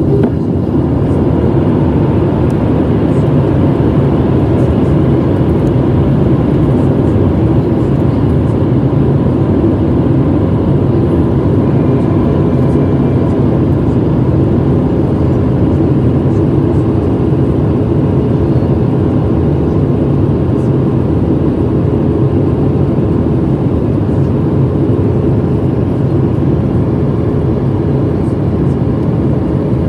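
Steady in-flight cabin noise of a Boeing 737-700 heard from a window seat over the wing: the low, even roar of its CFM56-7B turbofan engines and the rushing air, with a few faint steady tones on top.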